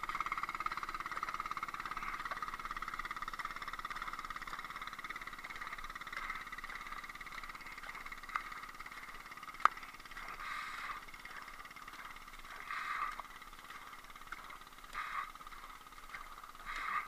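Double-bladed kayak paddle dipping into calm sea water: a soft splash every two seconds or so in the second half. Under it runs a steady high hum that slowly fades, and there is one sharp click about halfway through.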